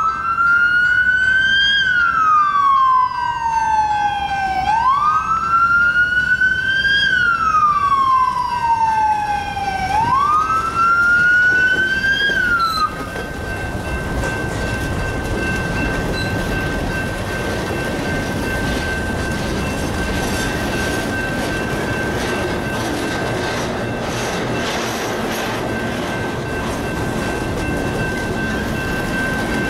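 Emergency vehicle siren wailing: it rises quickly and falls slowly about every five seconds, three times, then cuts off about 13 seconds in. Under it and after it, a long freight train of covered hopper cars rolls steadily past with the rumble and clatter of wheels on rail, and a steady high tone runs throughout.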